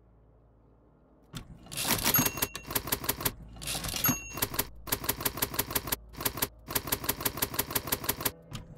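Typewriter keys clacking in quick runs of keystrokes, starting about a second in, with short pauses between the runs and two brief high rings among them.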